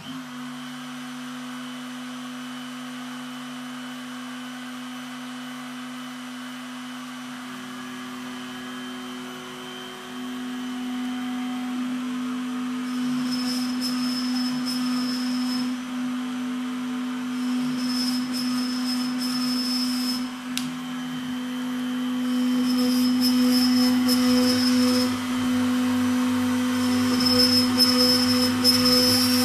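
Trim router spindle on a Shapeoko 3 XXL CNC starts up and runs at a steady whine, then cuts countersunk screw holes into the wasteboard. About four louder stretches of a couple of seconds each come from the bit cutting into the board, and they grow louder toward the end.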